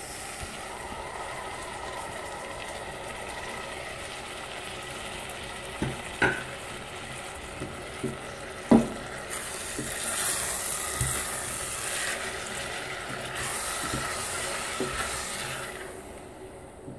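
Eggplant, onion and green pepper sizzling in hot oil in a stainless steel pot, with fresh tomato sauce just added. A spoon stirs the pot and knocks against it a few times between about six and nine seconds in. The sizzle then grows louder and brighter for several seconds before easing near the end.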